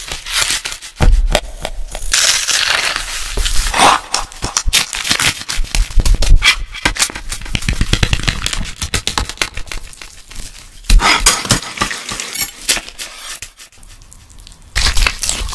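Close-miked food-preparation sounds in quick succession: the plastic film on a tray of raw ground beef crinkling, then raw bacon strips being laid down and handled, with many short clicks and rustles.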